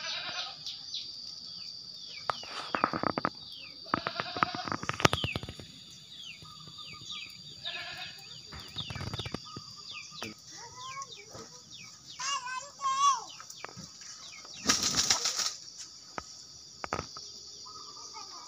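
Thin plastic sheeting of a small homemade hot-air balloon rustling and flapping in irregular bursts, the biggest late on, over a steady high drone and repeated short descending chirps.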